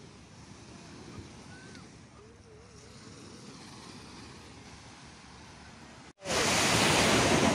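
Sea surf washing onto a sandy beach: a faint steady wash for about six seconds, then after a sudden break a much louder rush of surf and wind on the microphone.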